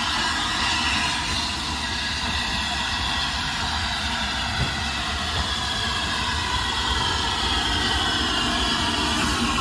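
LNER A3 steam locomotive Flying Scotsman approaching at low speed: a steady rumble mixed with the hiss of its steam exhaust.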